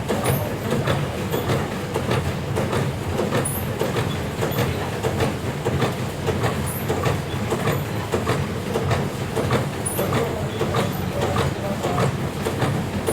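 Coffee packaging machine running with a steady rhythmic mechanical clatter, and a short high hiss or squeak about every three seconds.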